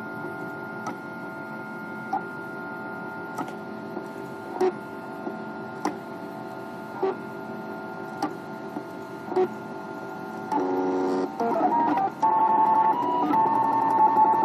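MakerBot Thing-O-Matic 3D printer running, its stepper motors singing steady tones with a short click about every 1.2 seconds. About ten seconds in the motor tones change, then turn louder and keep shifting in pitch as the head starts laying the internal infill grid of the ABS part.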